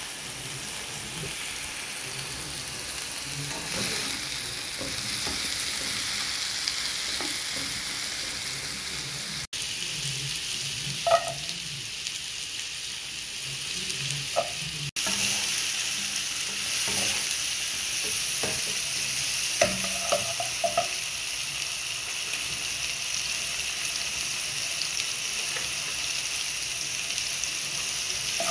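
Hot oil sizzling steadily in a pan as diced ash gourd and then chopped onion fry. Occasional knocks of a wooden spatula against the pan during stirring. The sizzle breaks off briefly twice.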